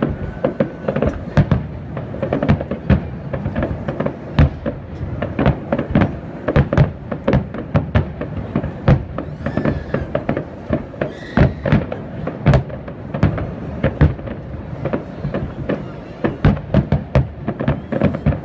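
Fireworks display: a continuous barrage of aerial shells bursting, several sharp bangs a second.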